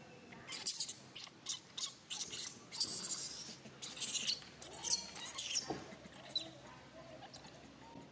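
Newborn long-tailed macaque crying in a rapid series of short, high-pitched squeals. The squeals die away about three-quarters of the way through.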